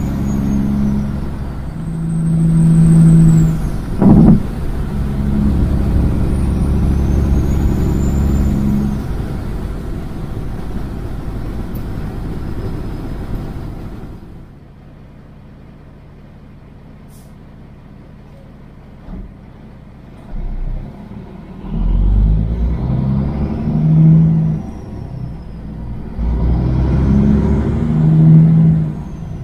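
Kenworth semi truck's diesel engine running loud through straight pipes under way, with a sharp click about four seconds in. About halfway it drops to a much quieter steady hum for several seconds. Near the end the engine revs up and falls back twice.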